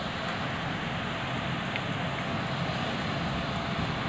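Steady rain falling, with wind rumbling on the microphone.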